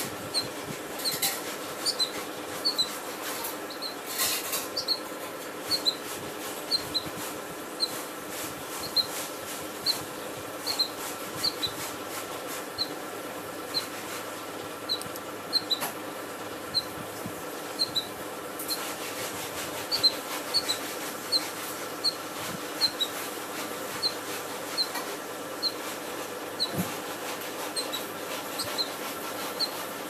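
Fledgling bulbul calling: short, high chirps repeated about one or two a second, often in pairs, over a steady low hum.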